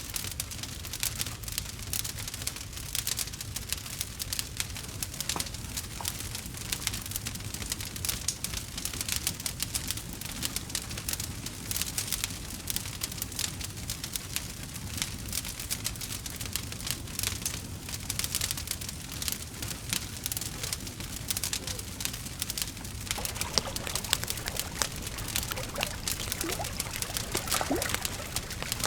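Wood fire crackling steadily: dense, rapid pops and snaps over a low rumble, with a few short squeaky whistles near the end.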